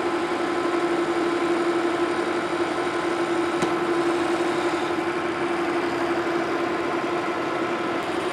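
Metal lathe running steadily while a steel mandrel is turned down, a constant hum with one strong steady tone over a whirring noise.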